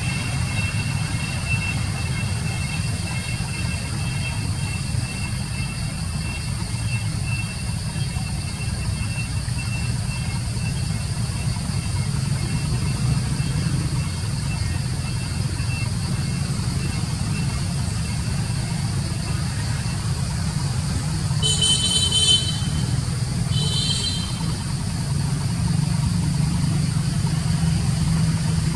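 Steady low rumble of a vehicle engine idling, with two short toots of a horn about three quarters of the way through.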